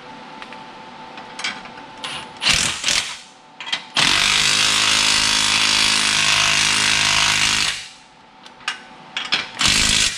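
Cordless impact wrench hammering as it tightens a bolt on an exhaust hanger. It goes in a few short bursts, then one steady run of nearly four seconds from about four seconds in, then short bursts again near the end.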